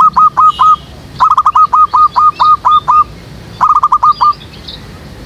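Zebra dove calling: three loud phrases of repeated staccato notes, each starting as a quick run and slowing into spaced notes. Faint higher chirps of small birds sound behind it.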